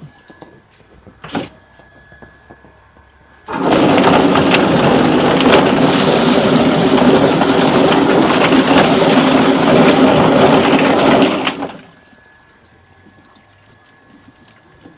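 Drum-type chicken feather plucking machine running for about eight seconds: a loud, even, rushing clatter over a low motor hum that starts suddenly and cuts off, preceded by a single knock.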